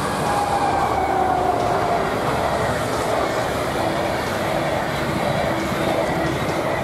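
DB Class 101 electric locomotive and its Intercity coaches passing at speed: a whine from the locomotive falls in pitch over the first couple of seconds as it goes by, then the steady rumble of the coaches' wheels on the rails.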